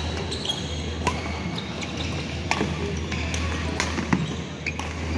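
Badminton play on a wooden sports-hall court: a scatter of sharp racket strikes on the shuttlecock and brief high squeaks of shoes on the floor, over a steady low hum.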